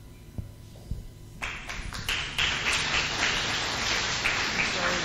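A few soft taps, then an audience starts applauding about one and a half seconds in, with steady clapping after that.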